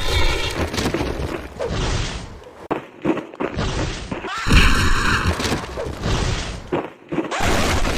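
Cartoon sound effects of heavy landing impacts: crashing thuds of the ground cracking and debris scattering, repeated several times. A brief high-pitched tone comes at the start, and another about four and a half seconds in, where the crash is loudest.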